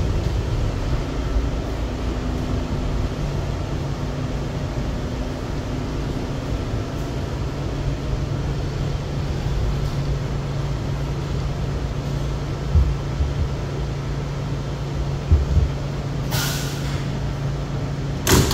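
Inside an R211A subway car: a steady low hum and rumble as the train comes into the station. There are a few low thuds, then a short hiss of air about sixteen seconds in, and a sharp knock near the end.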